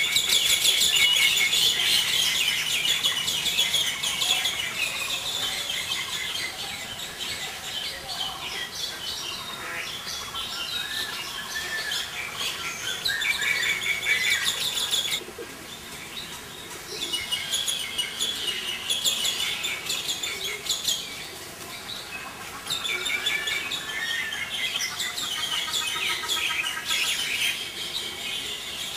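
Small birds chirping and twittering in a dense, continuous chorus, with a few short whistled calls mixed in. The chorus thins out briefly about fifteen seconds in, then picks up again.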